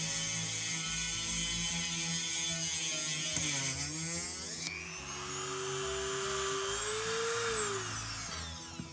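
Dremel rotary tool spinning a diamond tube bit into glass: a steady motor whine with a gritty grinding hiss. About halfway the pitch dips and the grinding stops abruptly as the cut ends, the motor runs on freely, and near the end its whine falls in pitch as it spins down.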